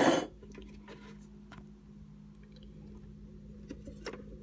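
Hamilton Beach tilt-head stand mixer's 300-watt motor running with a steady hum while its beater works a thick peanut-butter dough, with faint squishing and ticks from the bowl. A short loud noise comes at the very start.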